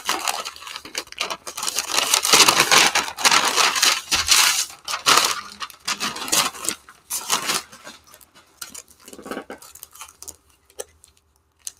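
Cardboard shipping box being opened by hand: tearing and rustling of the box and its packing. It is busy and fairly loud through the first several seconds, then thins to fewer, quieter rustles and small knocks.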